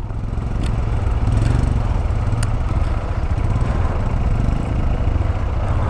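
Motorcycle engine running steadily at low revs, getting louder over the first second or so, with a couple of faint clicks.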